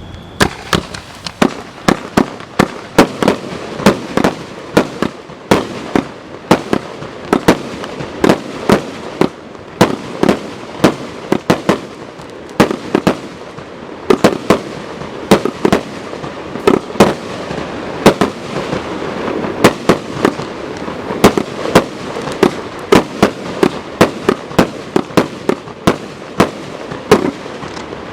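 Consumer firework battery (cake) firing a rapid, continuous string of shots, about two to three loud bangs a second, with crackling between them.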